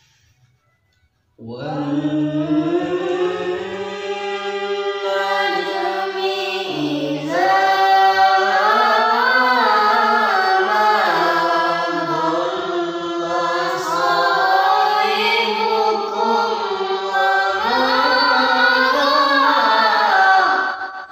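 Young boys chanting Quran recitation in the melodic tilawah style: one long phrase of held, ornamented notes that begins about a second and a half in and breaks off just before the end.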